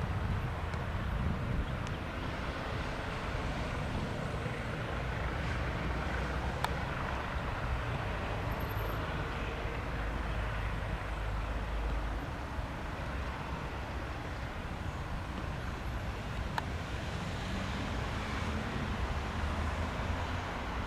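Eurocopter EC135 twin-engine helicopter running steadily: a continuous low rumble from its engines and rotor.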